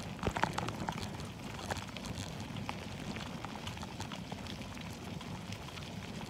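A bicycle rolling fast over a rough dirt road, pulled by a dog in bikejoring: a steady low rumble of the tyres with scattered sharp ticks and crunches of grit and gravel, a short cluster of louder ones about half a second in.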